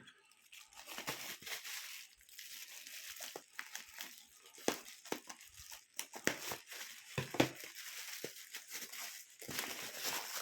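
Packing material being torn open and crumpled by hand: an irregular run of crackling, rustling and tearing.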